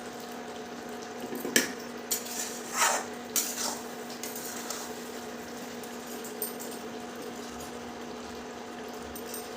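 Spoon scraping and knocking against a kadhai as a thick mixture is stirred: a handful of short scrapes in the first four seconds, then only a steady low background hum.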